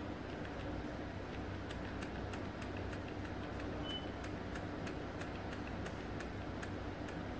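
Faint, irregular light clicks, a few a second, over a steady low hum and hiss.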